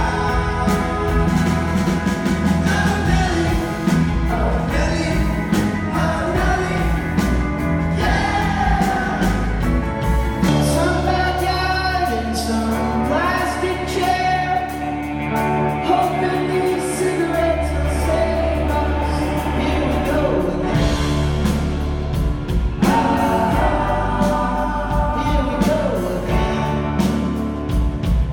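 Live rock band playing a song with sung vocals over bass, guitar and drums.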